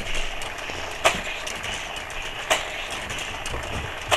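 Battery-powered Hot Wheels loop-track booster whirring steadily, with three sharp clacks about a second and a half apart.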